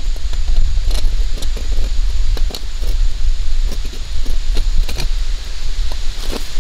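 Irregular metallic clinking and jangling, typical of steel raccoon traps and chain being handled, over a steady low rumble of wind on the microphone.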